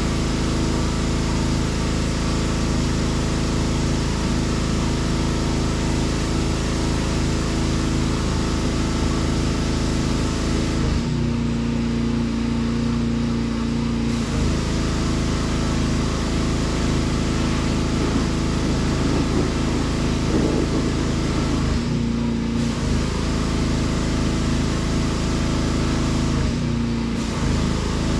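Steady drone of a running motor or engine, its tone shifting briefly a few times.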